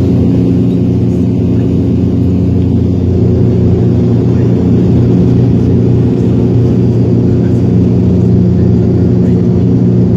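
Bombardier Q400 turboprop heard from inside the cabin: a loud, steady drone of the engines and propellers, several steady hum tones stacked over each other with no change in pitch.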